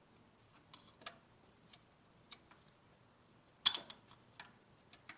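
Irregular sharp clicks and taps of the oil filter wrench and hand being handled against metal, about eight in all, with a louder clatter about three and a half seconds in.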